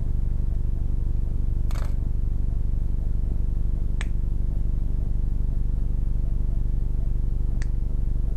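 A steady, low mechanical hum with a fast, even buzz to it, broken by three short, sharp clicks about two and four seconds apart.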